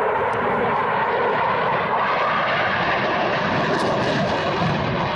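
Eurofighter Typhoon's twin EJ200 turbofan jet engines, loud and steady as the fighter flies its airshow display.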